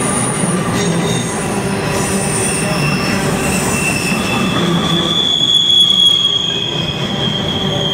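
Freight cars of a mixed freight train rolling past over jointed track with a steady low rumble, their wheels squealing in several high-pitched tones that come and go. About five seconds in, one loud, steady, high squeal sets in and holds.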